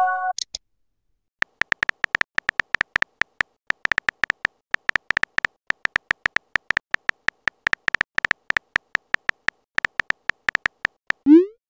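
Simulated phone-keyboard key clicks from a texting app, a fast irregular run of short ticks as a message is typed, ending in a brief rising swoosh as it sends. A short chime sounds at the very start.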